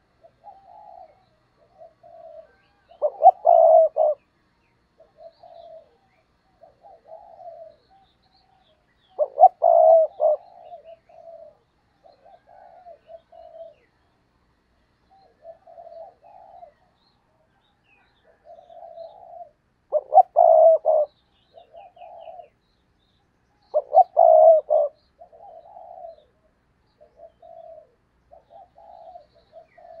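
Caged decoy spotted dove cooing: a run of soft, short coos, broken four times by louder, fuller coo phrases of about a second each.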